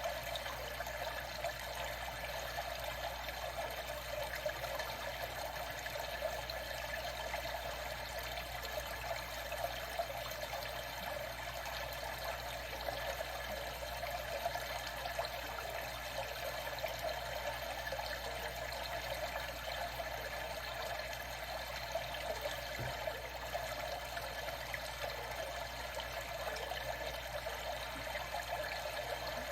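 Water trickling and lapping in a steady, unbroken flow, with small faint splashes here and there.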